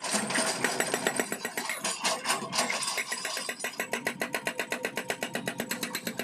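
Hydraulic rock breaker on a Sany excavator hammering, giving rapid metallic blows. The blows are uneven at first, then settle about three seconds in into a steady rhythm of about ten a second.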